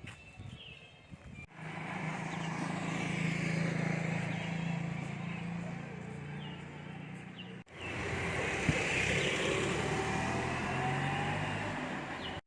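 A motor vehicle's engine running steadily with a noisy rush of road or wind noise. It starts abruptly about a second and a half in and breaks off briefly at a cut near the middle.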